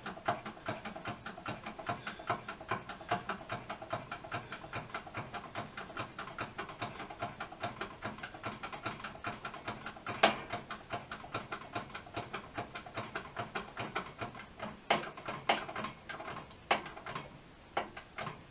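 OTC hand-pump hydraulic press being pumped to run its ram down onto a sheet-metal bending die, making a rapid, even clicking. A louder knock comes about ten seconds in, and over the last few seconds the clicks come fewer and louder.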